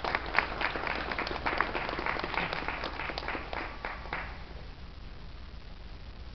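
A group of people applauding, which dies away about four seconds in and leaves quiet room tone.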